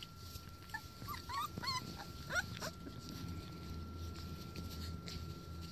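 Border collie puppies, about four weeks old, whimpering and yipping: a quick run of short, high squeaky calls starting about a second in and lasting under two seconds.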